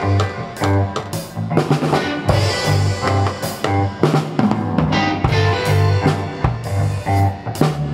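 Band music: a drum kit keeping a steady beat under a bass guitar playing a repeated low line, with higher instruments over them.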